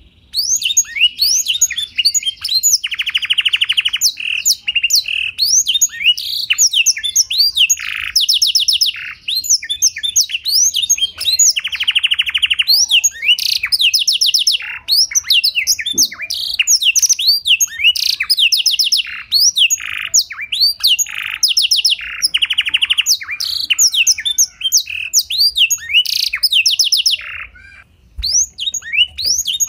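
Domestic canary singing a long, continuous song learned from a blackthroat: fast chirps and sweeping whistles broken by several rapid buzzy trills, with a brief pause near the end.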